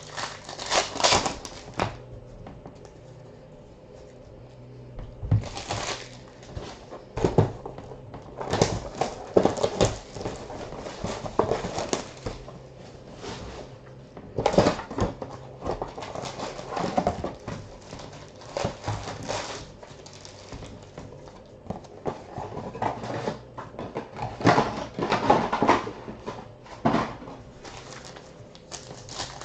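Trading cards and foil pack wrappers being handled: irregular rustles, crinkles and flicks of cards being slid and sorted.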